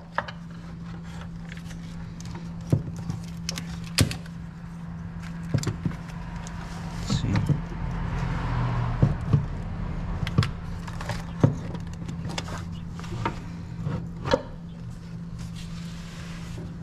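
Scattered metal clinks and knocks of a Toyota Tundra's valve cover being handled and set back onto the cylinder head, over a steady low hum.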